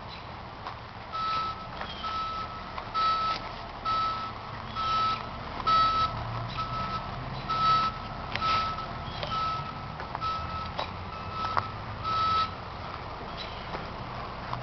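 A vehicle's reversing alarm from distant machinery, beeping at one steady pitch a little more than once a second, about a dozen times, then stopping. Louder footsteps crunch on the forest floor throughout.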